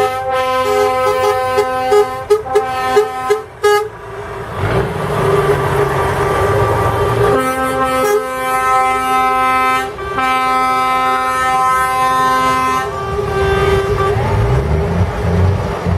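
Motorcade vehicles sounding their horns, several steady horn notes at once, in short toots for the first few seconds and then in long held blasts about halfway through. Between the two spells of horns there is a stretch of noise, and near the end engines rumble with rising and falling pitch.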